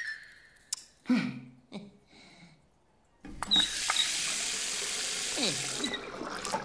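A few small clicks and squeaks, then a tap is turned on and water gushes from it into a bath for a few seconds before it is shut off.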